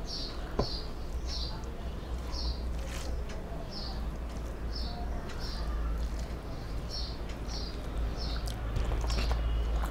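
A small bird chirping over and over in short high notes, about one or two a second, over a steady low hum. A few soft clicks come from rice being mixed by hand on a steel plate.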